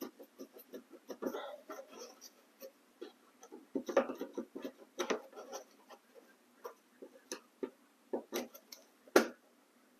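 Flathead screwdriver prying and twisting a plastic push clip out of a car's fender liner: a run of irregular small clicks and scrapes, with a few louder snaps about four, five and nine seconds in.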